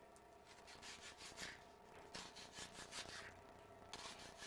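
Kitchen knife slicing through a whole onion against a wooden cutting board: faint scraping strokes in short runs, with brief pauses between them.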